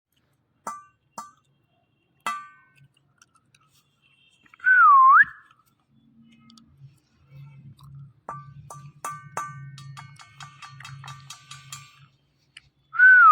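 Indian ringneck parrot whistling: one loud clear whistle about five seconds in that dips and then rises, and another like it starting near the end. Between them come short clicks and chirping notes, with a faint low hum in the second half.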